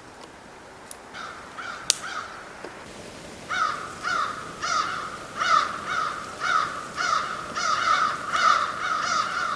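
A crow cawing over and over, about two caws a second, loud and steady from about three and a half seconds in, with a few fainter caws before that. Two sharp clicks come in the first two seconds.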